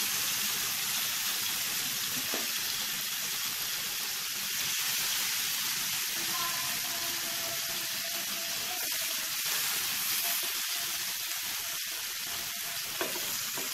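Marinated chicken drumsticks sizzling steadily on an oiled, ridged grill pan over a low flame as grill marks sear into them. A few faint knocks come as more drumsticks are laid down in the pan.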